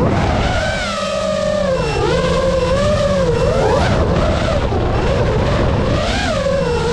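FPV racing quadcopter's motors whining at high speed, the pitch swooping up and down several times as the throttle changes, over wind rush.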